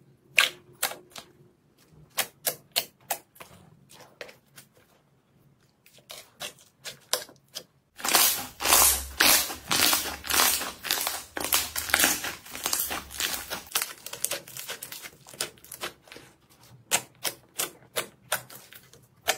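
Slime being squeezed and pressed by hand, making a run of sharp clicking and popping sounds. The clicks are spaced out at first, then become denser and louder from about eight seconds in.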